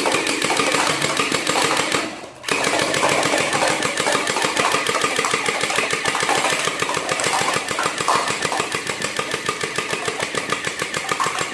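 Toy M416 rifle firing in rapid fire: a fast, continuous mechanical rattle that breaks off briefly about two seconds in, then starts again and runs until it stops near the end.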